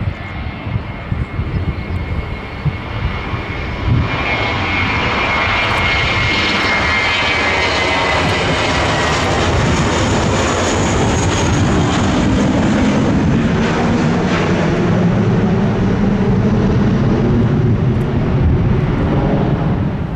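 Two IAE V2530-A5 turbofans of an Airbus A321 at takeoff thrust during the takeoff roll and lift-off. There is a high fan whine that slowly falls in pitch, the sound grows louder about four seconds in, and a deep rumble builds toward the end.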